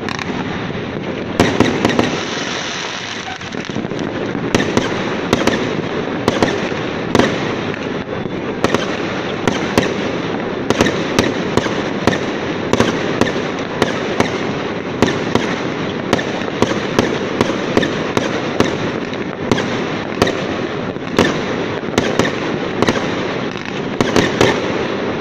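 Fireworks display: aerial shells and rockets bursting overhead, sharp bangs about one or two a second over a continuous noise of the barrage, coming faster in the second half.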